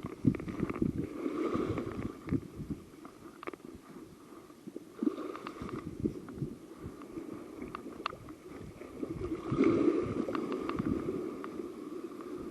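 Wind buffeting the microphone in uneven gusts, with scattered crackles and knocks throughout.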